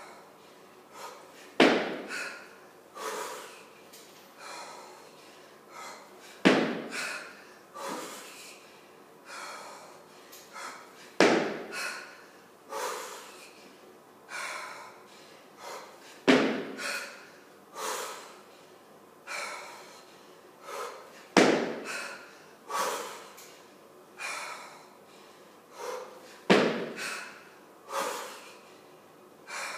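A woman breathing hard and rhythmically through a set of 18 kg kettlebell jerks, in short regular breaths about once a second. A louder, sharper sound comes every five seconds, once with each rep at a pace of 12 reps a minute.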